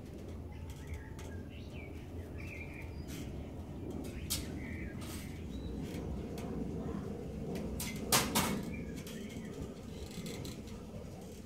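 Steady low outdoor background rumble with a few faint, short high chirps in the first few seconds and scattered light clicks. A louder clatter of clicks comes about eight seconds in.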